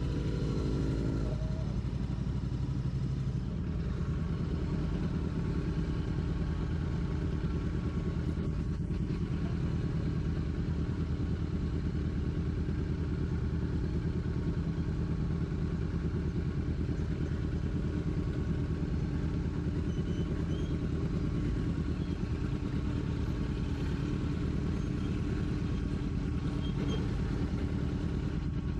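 Royal Enfield Classic 650's 648 cc parallel-twin engine running steadily, heard from the rider's seat.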